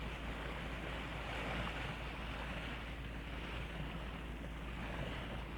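Sailing yacht under engine: a steady low engine drone with water rushing along the hull and some wind on the microphone.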